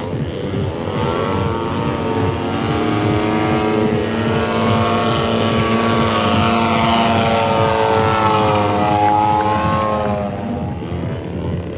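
Radio-controlled aerobatic model plane's engine and propeller droning, its pitch shifting gently as the plane manoeuvres. It is loudest in the middle and eases off near the end.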